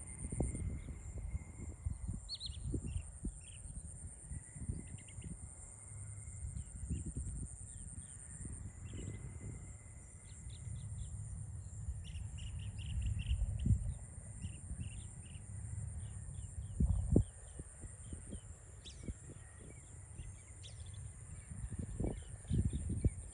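Outdoor rural ambience: small birds chirping in short scattered calls over a steady high-pitched insect drone, with irregular low rumbles and thumps, the loudest about two-thirds of the way through.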